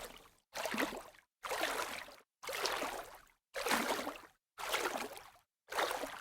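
Light splashes of water, one about every second. Each is a short burst of splashing that starts sharply and fades away, with a brief silence before the next.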